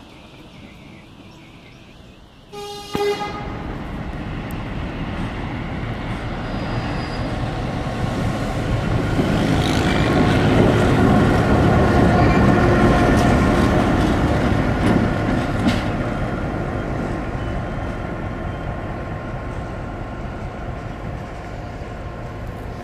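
Series 661 diesel-electric locomotive, with its EMD two-stroke V16 engine, sounds one short horn blast about three seconds in. Its engine noise then grows louder as it passes close by, peaks about halfway through, and slowly fades as it runs away.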